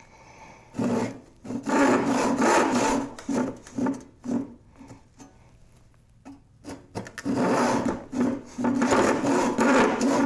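A 22-inch crosscut hand saw cutting through a wooden board with quick back-and-forth strokes, the teeth rasping through the wood. There are two runs of strokes with a short pause of a couple of seconds in the middle.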